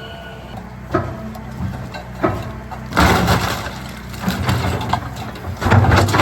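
Engine of a large construction machine running steadily, with sharp knocks and louder crashing bursts about three seconds in and again near the end as it knocks over a metal light pole.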